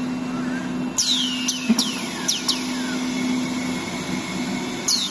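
Plywood-factory woodworking machinery running with a steady hum, with half a dozen short, high squeals that fall in pitch, most of them between one and three seconds in and one near the end.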